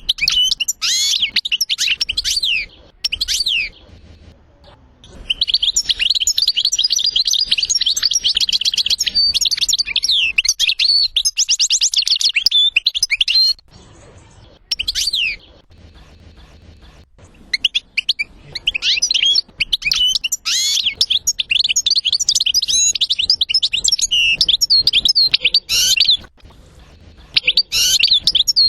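European goldfinch singing: long runs of rapid, high twittering and chirps in phrases broken by short pauses, as played from a goldfinch song-training recording.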